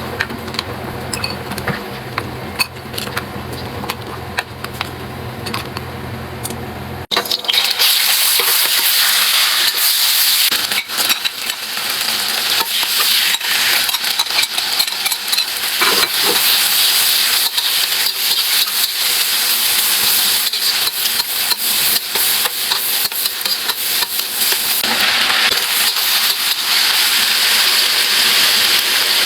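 A low, steady hum with a few light clicks. About seven seconds in it cuts off abruptly to food frying loudly in a hot pan, sizzling as it is stirred, with many small clicks and taps against the pan.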